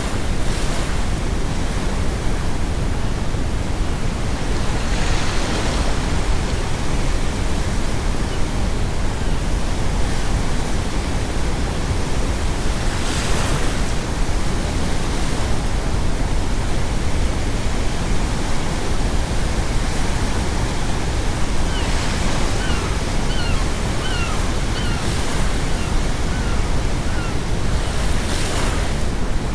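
Steady brown noise mixed with ocean waves, the surf surging up now and then as waves break and wash in. In the last third, a string of about eight short seagull calls.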